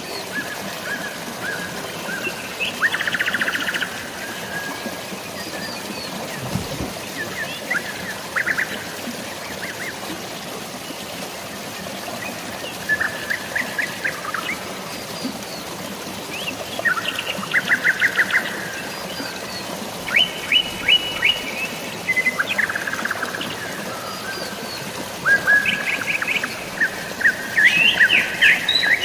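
Songbirds chirping and trilling in short phrases of quickly repeated notes, coming more often in the second half, over a steady hiss of drizzling rain and flowing water.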